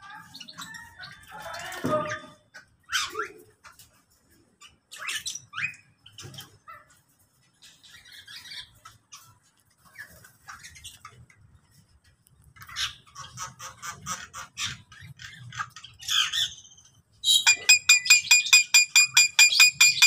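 Mixed aviary birds calling: scattered short chirps and squawks. Near the end, one bird breaks into a loud, fast rattling call repeated several times a second.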